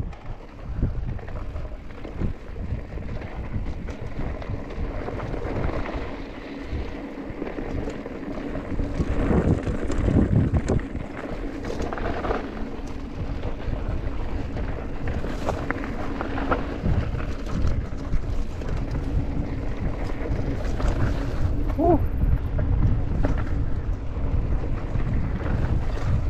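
Wind buffeting the microphone during a mountain bike ride, a steady low rumble, with scattered knocks and rattles from the bike over rough trail.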